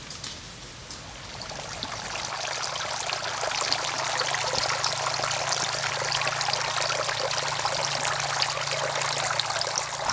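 Water from clay-pot fountains spraying and splashing into a pond: a steady trickling patter that fades in over the first couple of seconds, with a faint low hum underneath.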